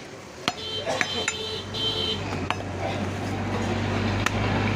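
About five sharp knocks at uneven intervals, of knives and meat on wooden chopping blocks at a butcher's stall. Under them, a low engine drone starts about a second in and grows steadily louder.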